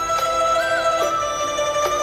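Instrumental background music: a held melody line that slides up and back down between notes over sustained accompanying tones.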